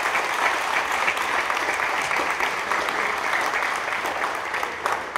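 A crowd applauding, a dense steady round of handclaps.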